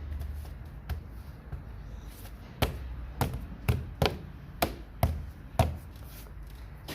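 Engine cover being pushed down onto its mounts over the engine: a run of about seven sharp knocks and snaps, each over at once, falling about every half second.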